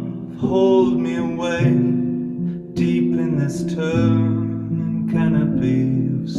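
A man singing, accompanying himself with chords on a keyboard piano; each new chord is struck under a sung phrase and left to ring.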